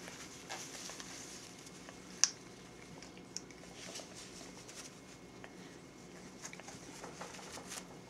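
African grey parrot nibbling and tearing at a paper napkin held in a hand: faint rustling and scattered soft clicks. One sharp click comes about two seconds in.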